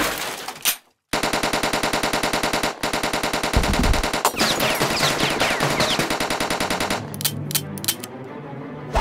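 Submachine-gun fire sound effect: rapid automatic shots start about a second in, break briefly near the three-second mark, then resume with high falling whines over them. The firing stops about seven seconds in, followed by a few scattered sharp clicks.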